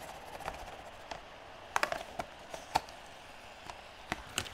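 Rigid plastic lid of a self-heating hot pot being pried off with a chopstick: a series of sharp plastic clicks and snaps. They cluster about two seconds in, the loudest comes near three seconds, and two more follow near the end as the lid comes free.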